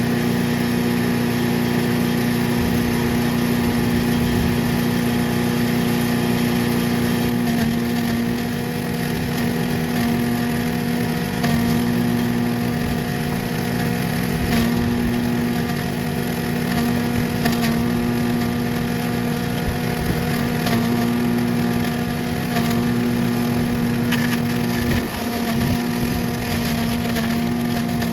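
Small gasoline engine of an MTD chipper/shredder running steadily at working speed while shredding damp oak leaves, with scattered ticks and rattles.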